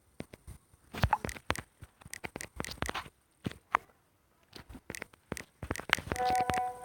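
Irregular clicks and taps, like fingers tapping and handling a phone. About six seconds in, a short pitched tone sounds over them.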